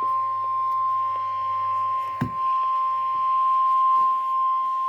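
NOAA Weather Radio 1050 Hz warning alarm tone: one long, steady, loud beep that announces an urgent warning message, here a severe thunderstorm warning, with a low hum beneath it. A short low thump sounds about two seconds in.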